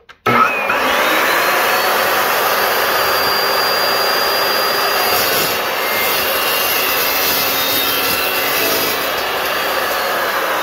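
Evolution R355CPS 14-inch carbide-tipped chop saw starting with a rising whine, then cutting through a clamped metal tube with a loud, steady cutting noise. Its whine falls in pitch near the end.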